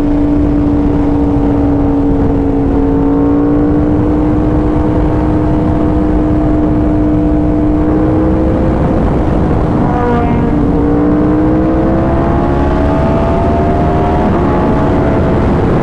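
2019 Yamaha R1's crossplane inline-four with an SC Project exhaust, running loud and steady under way. Its pitch slowly rises, drops briefly about ten seconds in, climbs again, then eases near the end, over steady wind rush on the microphone.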